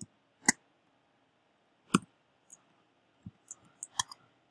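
Computer keyboard keystrokes: two single key presses about a second and a half apart, then a short run of quicker, lighter taps near the end.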